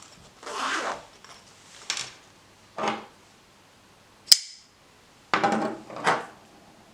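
Small folding knives and their zip cases being handled: a short rustling rasp, then a string of separate clicks and clacks, the sharpest and brightest about four seconds in.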